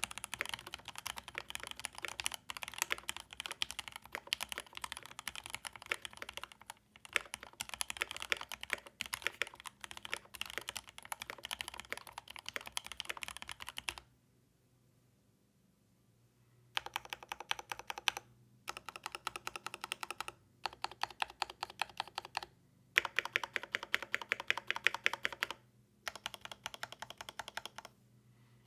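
Typing on a Keychron K8 Pro mechanical keyboard with Gateron G Pro Yellow linear switches and GMK Honor keycaps: fast runs of key clacks. The typing stops for about three seconds around the middle, then comes back in short bursts with brief pauses between them.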